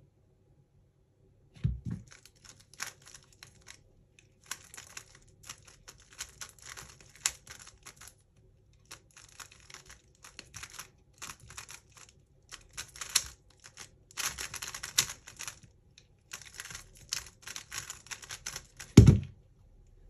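A plastic 3x3 speed cube being turned fast, in rapid clicking runs broken by short pauses. A thump about two seconds in as the solve begins, and a louder thump near the end as it finishes.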